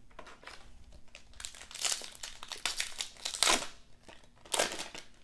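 Trading-card pack wrapper crinkling as it is handled, opened and crumpled by hand, in irregular rustling bursts, loudest about two, three and a half and four and a half seconds in.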